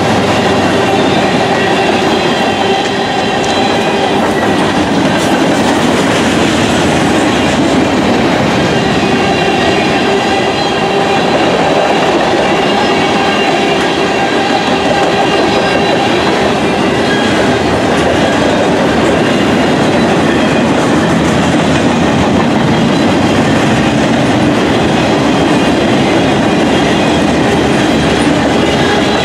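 Freight train of tank cars and hopper cars rolling past close by: a loud, steady rumble and clatter of steel wheels on the rails.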